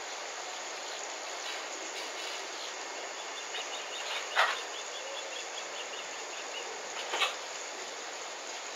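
Steady outdoor insect drone with a quick run of faint, high chirps in the middle. Two brief, sharp sounds stand out, about three seconds apart, and they are the loudest thing heard.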